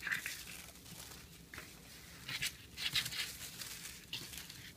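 Tissue paper rustling and crinkling in several short bursts as a sheet is unfolded and spread out by hand.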